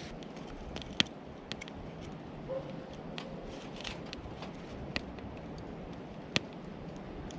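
Wood campfire crackling: a few sharp pops and smaller snaps over a steady low hiss.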